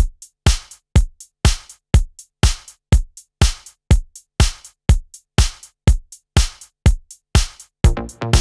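Electronic house drum beat at about 122 beats a minute: a hit with a deep low end on every beat, about twice a second, with lighter hits between them. Near the end, synth chords come in over the beat.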